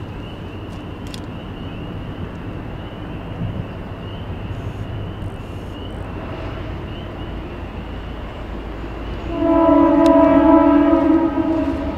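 Approaching diesel freight locomotives rumbling, with a crossing bell dinging steadily. About nine and a half seconds in, the locomotive horn sounds one chord of about two seconds. It is an NECR unit's Nathan M3 chime horn, which is in dire need of re-voicing.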